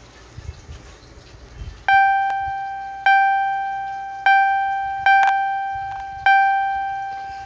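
A single high piano-like keyboard note struck about five times, roughly once a second, each strike ringing and fading before the next. The first two seconds hold only faint low noise.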